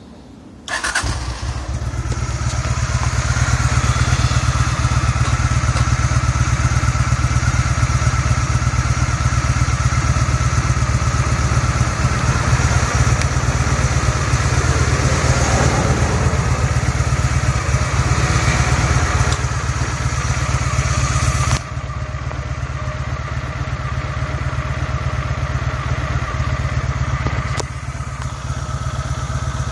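2005 Honda Shadow Spirit 750's V-twin engine started on the electric starter, catching almost at once, then idling steadily. The bike has just been cleared of a flooded start with new spark plugs. The sound drops a little in level about two-thirds of the way through.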